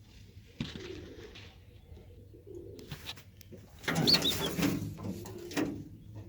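Birmingham Roller pigeons cooing in the loft, with a louder, noisy burst of activity from about four to nearly six seconds in.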